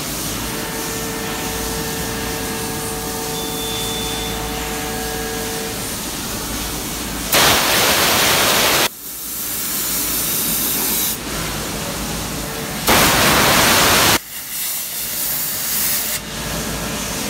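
Large gantry CNC milling machine cutting a metal plate: a steady machining noise with a few faint steady tones, then two loud hissing blasts of coolant spray, each about a second and a half long.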